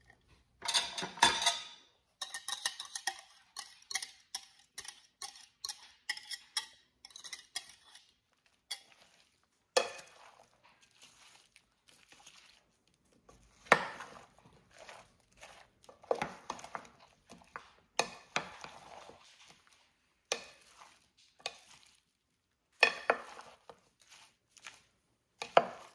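A white serving spoon stirring chopped fruit coated in whipped cream in a cut-glass bowl: uneven clinks and scrapes of the spoon against the glass, coming in clusters of strokes with short pauses.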